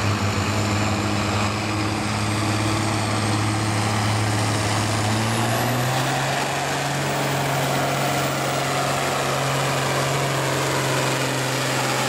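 Farmall farm tractor's engine working hard under load while pulling a weight-transfer sled: a loud, steady drone that steps up slightly in pitch about halfway through and then holds.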